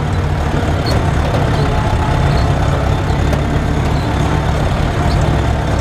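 Zetor tractor's diesel engine running steadily, heard from inside the cab as the tractor drives along.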